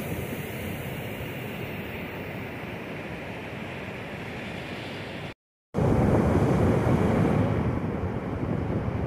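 Sea surf washing up the beach, with wind buffeting the microphone. The sound drops out briefly a little over halfway through, and afterwards the wind and surf noise is louder.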